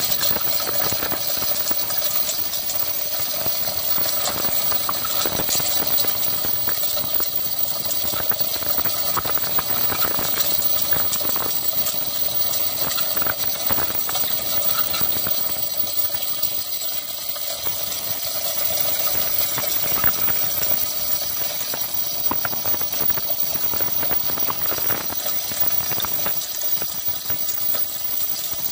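Hand-pulled chain block lowering a submersible pump's pipe into a borewell, its chain rattling and clicking steadily through the block, over a constant background noise.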